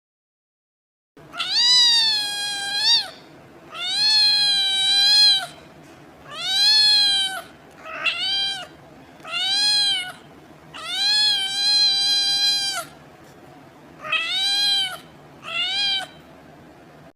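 Domestic cat meowing eight times, some calls long and drawn out and some short, over a faint steady hiss.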